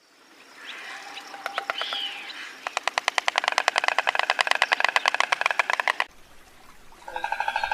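Stork clattering its bill: a rapid, even train of sharp clacks, about ten a second, lasting roughly three seconds before stopping abruptly. Softer, scattered clicks come first.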